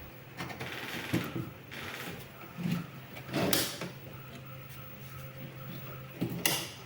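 Knocks, clunks and scraping from a portable folding table being handled and adjusted, the loudest knock about three and a half seconds in and another near the end.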